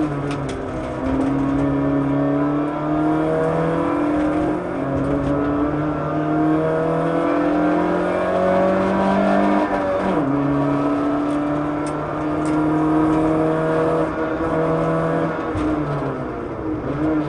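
Rally car engine heard from inside the cabin, held at high revs under hard throttle. Its pitch climbs slowly for several seconds, drops suddenly about ten seconds in, then holds steady again.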